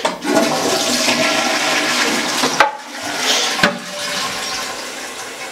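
Toilet flushing: water rushes from the cistern into the bowl as soon as the button on top of the cistern is pressed, easing off in the second half. Two sharp clicks come partway through.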